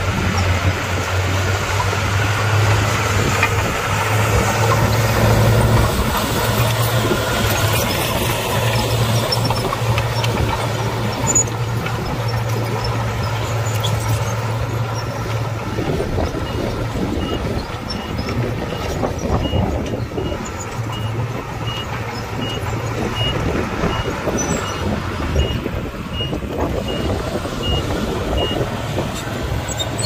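Heavy diesel earthmoving machinery running, a bulldozer or dump truck, with a steady low engine drone through the first half. From a little past halfway, a high reversing alarm beeps at an even pace until near the end.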